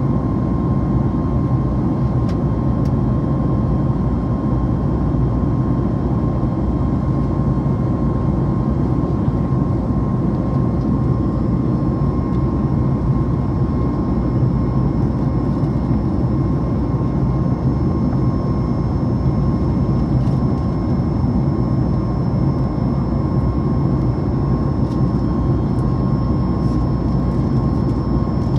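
Steady cabin noise of a Boeing 737 MAX 8 climbing after takeoff, heard from a window seat by the wing: an even rush of airflow and CFM LEAP-1B engine noise with a thin steady whine over it. A faint higher whine joins about a third of the way through.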